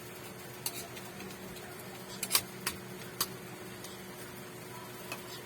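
A handful of short, sharp clicks and taps, the loudest about two and a half seconds in, over a steady low hum.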